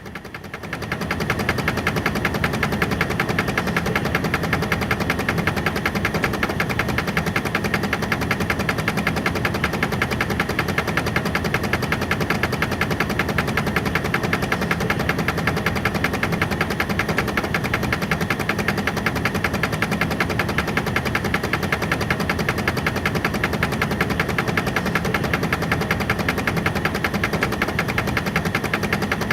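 A machine starts about a second in and runs with a fast, even, rapid pulsing beat.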